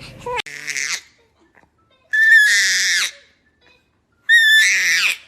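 A baby squealing in three high-pitched, drawn-out shrieks, each under a second long, with short pauses between.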